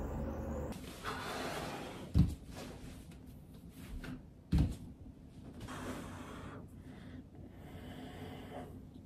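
Two dull thumps about two and a half seconds apart, a person's body and legs coming down on an exercise mat over a wooden floor while stretching, with softer movement sounds between.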